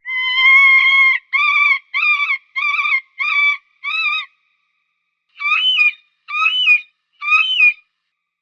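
Falcon calling: one long shrill call, then a run of five short calls, a pause of about a second, and three more calls that rise and fall in pitch.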